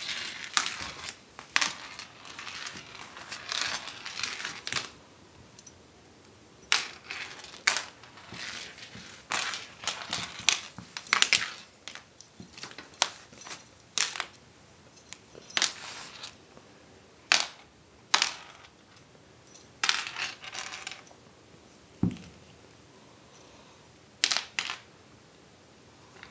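A kitten batting at a dangling lanyard on a hardwood floor: irregular sharp clicks and clinks with short rustles between them.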